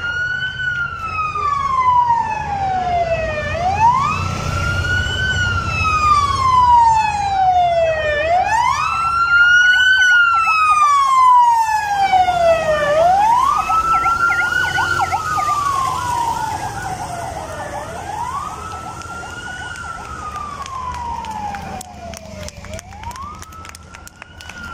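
Police escort siren wailing: each cycle rises quickly and falls slowly, repeating about every four to five seconds. Low engine rumble from the passing escort motorcycles is underneath in the first half.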